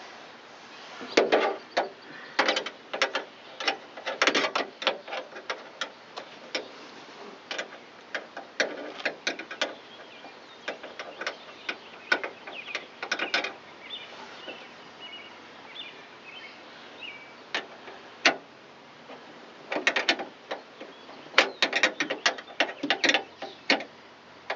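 Metal wrench clicking and clinking against a nut and the sheet-metal door shell in irregular bursts, as a door-handle mounting nut is tightened by hand inside a van door.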